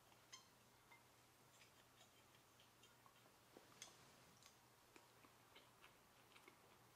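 Faint, irregular light clicks of a fork and spoon on ceramic and glass tableware as pasta is twirled and eaten, over a low steady hum.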